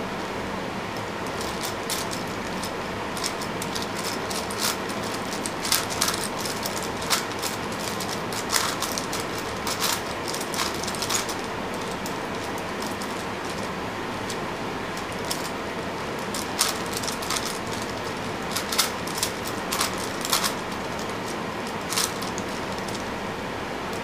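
A Rubik's 5x5 cube's plastic layers being turned by hand: irregular clicks and clacks in two flurries, with a short lull about halfway through, over a steady hiss.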